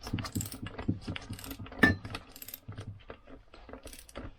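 Small metal engine parts and tools clinking and clattering irregularly on the bench, with one sharp, ringing metal clink about two seconds in.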